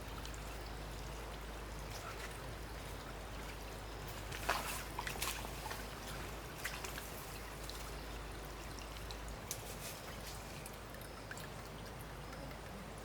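Steady trickle of running water, with a few sharp clicks or knocks about four to five seconds in and a couple more later.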